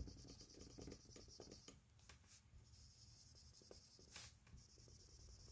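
Faint scratching of a marker scribbling colour onto a whiteboard, with a short tap at the very start.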